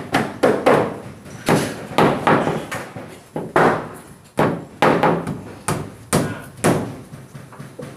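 Hammer blows on a plywood wall board, driving in fasteners: sharp, irregular strikes about two a second, each ringing briefly.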